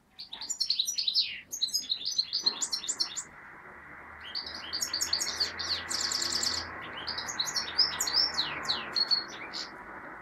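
Caged European goldfinch singing: fast, high twittering phrases, with a short break about three seconds in. A steady hiss runs underneath from about two and a half seconds on.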